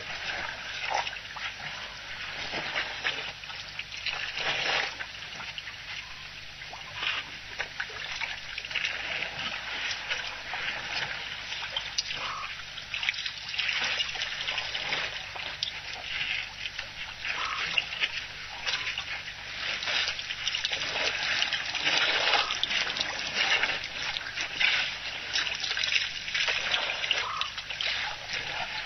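A herd of African elephants drinking at a waterhole: irregular splashing, slurping and trickling of water as their trunks draw it up and pour it out, continuing throughout.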